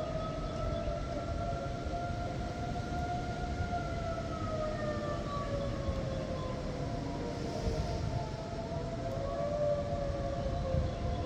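Several outdoor warning sirens sound together for the statewide tornado-drill test, their wailing tones slowly rising and falling over one another. A low rumble runs underneath.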